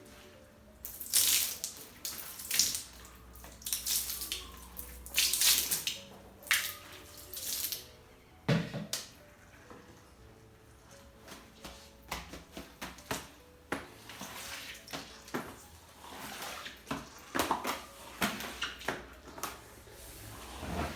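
Water splashing and running in short, irregular bursts, with a knock about eight and a half seconds in and small clicks of things being handled.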